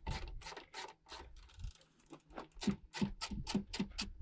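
A 14 mm ratchet clicking rapidly as it backs a bolt out, about five to six clicks a second, with a brief lull about a second and a half in.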